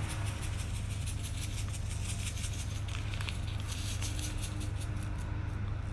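A small plastic vanilla powder sachet crinkling and being tapped as its powder is shaken out onto flour: a run of light rustling ticks, thicker at the start and again about four seconds in, over a steady low hum.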